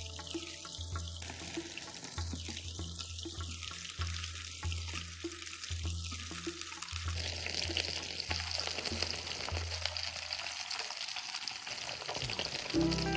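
Fish frying in hot oil, a steady sizzle that grows brighter about halfway through. Background music with a pulsing bass line plays underneath.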